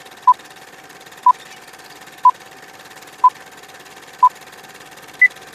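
Film-leader countdown sound effect: a short beep once a second, five times at the same pitch, then a single higher-pitched beep near the end, over a steady faint hum and hiss.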